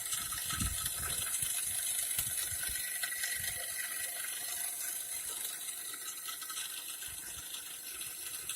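Pneumatic tapping machine with a gear train running: a steady hiss with mechanical whirring, with a few low knocks in the first three seconds.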